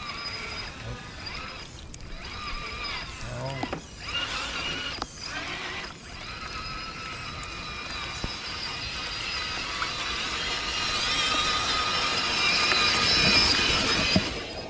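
Radio-controlled car running, its motor and gears whining at a high, wavering pitch that grows louder toward the end and then cuts off suddenly.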